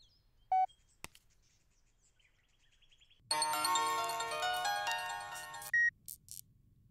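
Smartphone melodic ringtone-style chime sounding for about two and a half seconds, with a short single beep about half a second in and another just after the chime.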